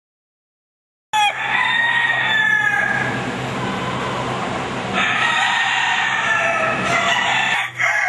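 Fighting roosters crowing. The sound cuts in about a second in with one long crow, and another long crow follows about five seconds in.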